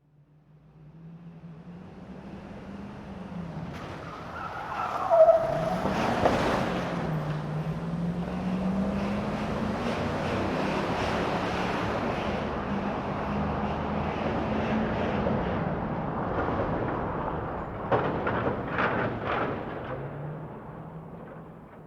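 Truck driving inside a building: its engine fades in, the pitch rising and falling as it moves, then fades away near the end. A brief high tyre squeal comes about five seconds in, and a few sharp knocks about three seconds before the end.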